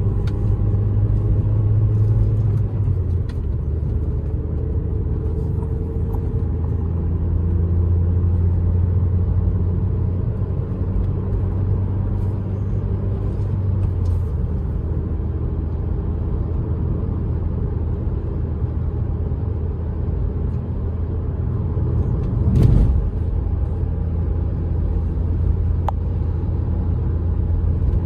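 Ford SVT Focus's 2.0-litre four-cylinder engine humming steadily with road noise, heard from inside the cabin while cruising. The engine note drops slightly a few seconds in, and a single thump comes about three-quarters of the way through.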